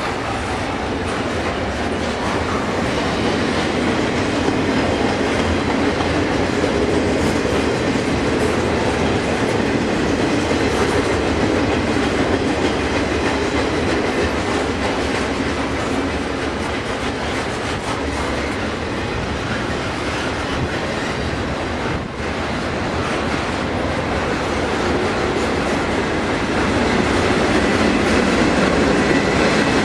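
Union Pacific double-stack container train rolling past: a steady rumble of steel wheels on rail, a little louder near the end.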